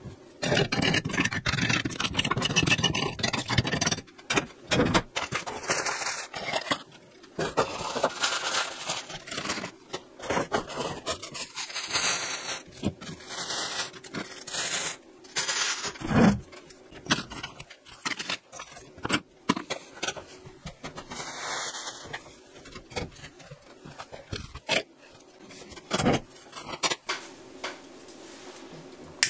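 Fire being laid in a brick-lined stove firebox. Ash and grate are scraped for the first few seconds, then paper is crumpled and rustled in. Near the end, a few knocks come as pieces of wood are set on top.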